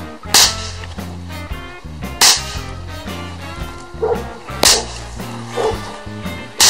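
Bang snaps thrown one by one onto the ground, each bursting with a sharp crack on impact: four cracks about two seconds apart, over background music.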